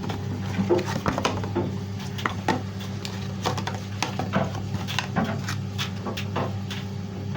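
Irregular small clicks, knocks and rustles of a colour catcher sheet being taken out of its box by hand, over a steady low hum.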